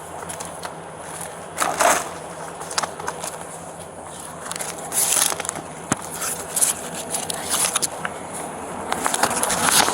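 Irregular rustling and crinkling handling noise in short bursts, loudest about two seconds in and again near the end.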